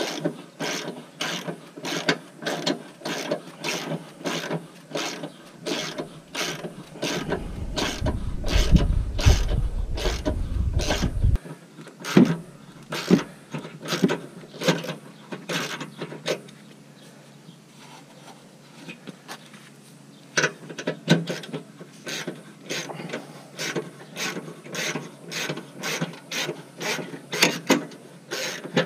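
Hand ratchet wrench clicking at a few clicks a second as it works a transmission mount bolt loose through the inner fender. The clicking pauses for a few seconds past the middle, then starts again. A low rumble comes in for about four seconds, about a quarter of the way in.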